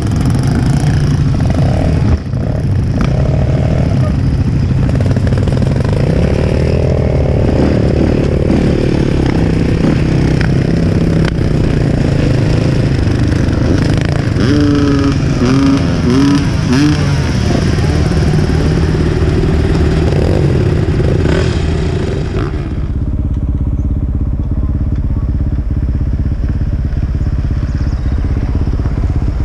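Enduro motorcycle engine running while ridden, its pitch rising and falling with the throttle. About 22 seconds in it settles to a lower, steadier, slightly quieter note.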